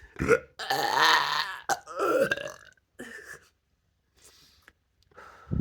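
Deliberate belches, as in burp talking: three loud ones in quick succession, the middle one about a second long, then a few fainter short ones and a brief low belch at the end.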